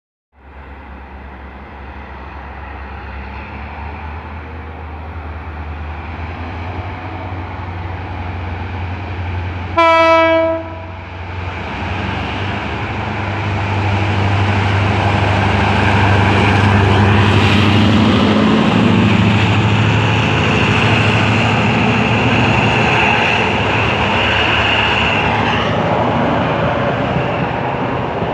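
TCDD DE22000-class diesel-electric locomotive approaching and passing with a passenger train. Its engine drone builds steadily, a single horn blast of about a second comes about ten seconds in, and then the louder engine and the rolling of the coaches go by.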